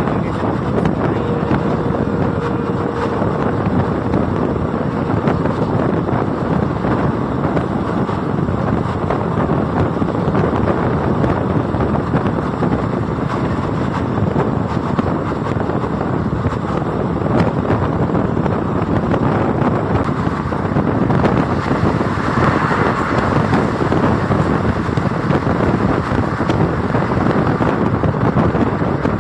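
Passenger train running at speed, heard from an open coach door or window: a steady rumble of the coaches on the track mixed with wind blowing on the microphone.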